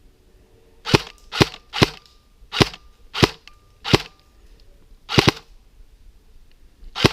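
Airsoft gun firing single shots, about seven sharp reports spaced irregularly over five seconds.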